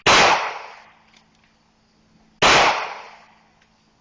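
Two shots from a Glock G23 pistol in .40 S&W, about two and a half seconds apart, each a sharp crack that fades away over about a second.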